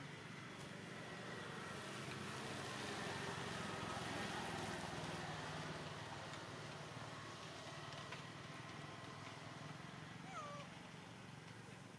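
Faint macaque calls over a steady hiss of outdoor noise, with one short squeak that rises and falls near the end.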